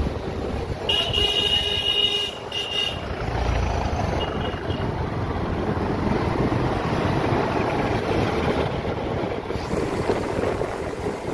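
Motorcycles riding in a group, engines running with road and wind noise, while a high-pitched horn honks for about two seconds near the start and once more briefly a little later.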